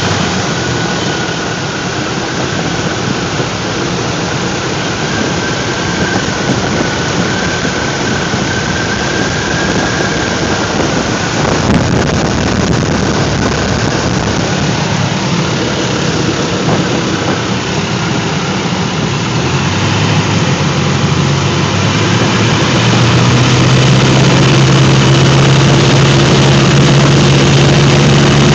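Light aircraft's engine and propeller droning steadily, heard from inside the cabin together with rushing air noise. Near the end it grows louder, with a stronger, steadier low drone.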